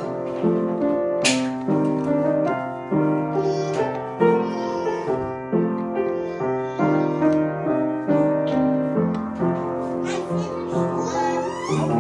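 Gentle piano music, with held notes that change about once a second. A few brief high sounds come in over it, mostly near the end.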